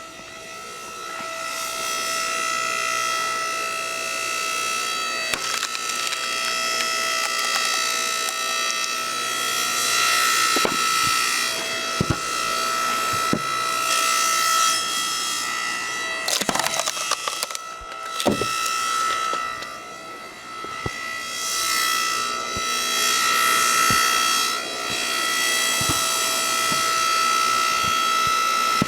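Yardworks 6.5-ton electric hydraulic log splitter running with a steady whine that swells and eases as the ram pushes through rounds, with a few sharp cracks of wood splitting around the middle.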